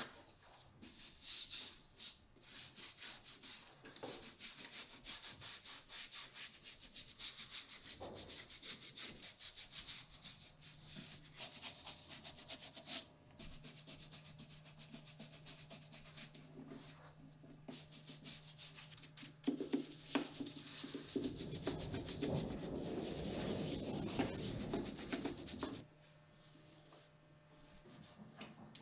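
A small wooden stick rubbed rapidly back and forth along a leather boot's welt and sole edge, in quick scraping strokes, with a low steady hum under the middle part.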